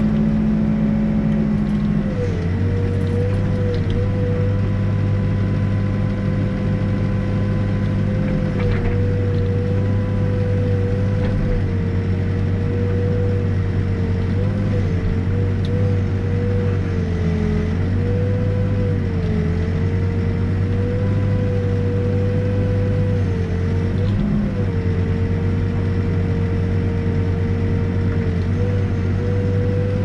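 New Holland backhoe's diesel engine running steadily as the bucket digs a footing trench, heard from inside the cab, with a steady whine that dips briefly every few seconds as the load changes.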